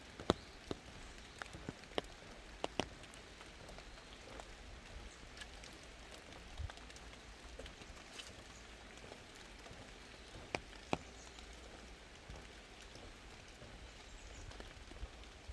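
Rain falling in a forest: a steady hiss with scattered sharp, irregular taps of drops landing close by.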